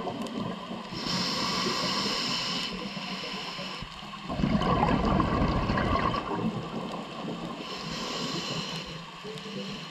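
Scuba diver breathing through a regulator, heard underwater: a hissing inhale, then a burst of bubbling exhaust, then another hissing inhale near the end.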